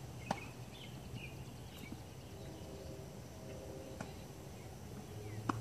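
Tennis balls struck with rackets on a grass court: three sharp pocks, the first, about a third of a second in, the loudest, then two more near the end.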